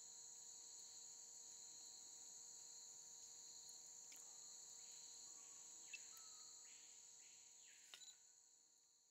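Faint, steady high-pitched chorus of insects trilling at two pitches, fading away over the last few seconds, with a couple of faint clicks about six and eight seconds in.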